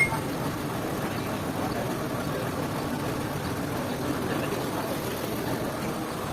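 Sawmill machinery running steadily with an even mechanical drone. A short sharp click comes right at the start.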